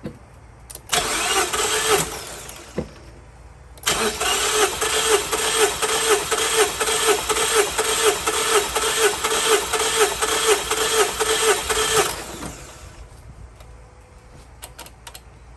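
Starter cranking a 2014 Mazda 3's 2.0 L four-cylinder engine with its spark plugs out and a compression gauge on the last cylinder: a short crank of about a second, then a steady rhythmic crank of about eight seconds that stops without the engine firing.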